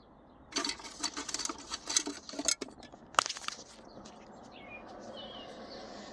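Plastic gear-shifter parts being handled and fitted: a quick run of small clicks and rattles, then one sharp click about three seconds in, followed by a faint hiss.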